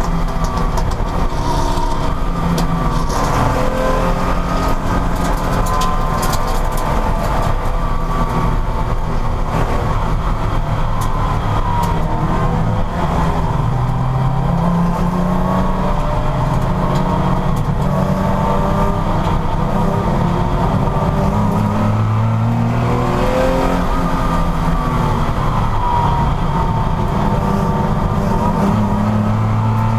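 Porsche racing car engine running hard at high revs, its pitch climbing and falling again and again.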